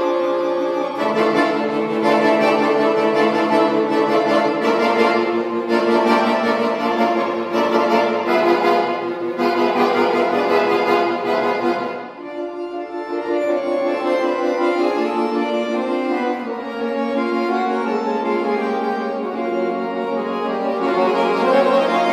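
Piano accordion playing solo: a dense, fast passage of full chords that breaks off about halfway through into softer held chords, building up again near the end.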